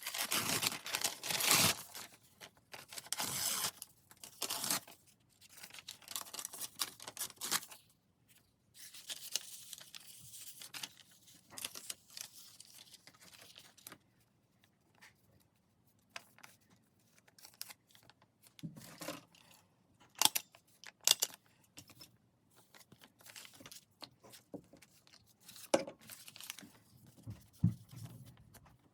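Paper being torn and rustled in several noisy bursts, followed by scattered handling clicks, the sharpest two about twenty seconds in.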